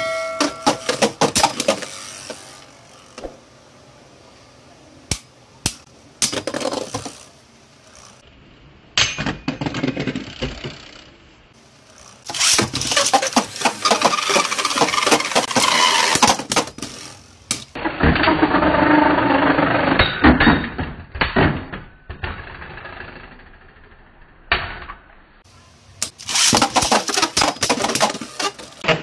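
Two Beyblade Burst tops, Divine Belial and Ultimate Valkyrie, spinning in a clear plastic stadium: spells of rapid clattering as they clash and skid, with quieter stretches of spinning between.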